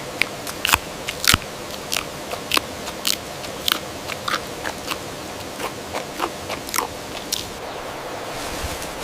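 An animal chewing, with sharp, irregular crunches about one to two times a second over a steady hiss.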